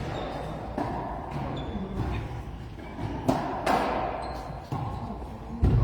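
Racquetball rally: the ball is struck by racquets and smacks off the court walls and floor in a series of sharp impacts, with the loudest hit near the end.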